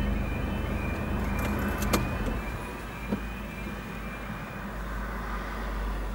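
Car engine idling at a railway level crossing while the crossing gates swing shut. There is a sharp clack about two seconds in and a lighter knock about a second later, and the engine hum fades after that.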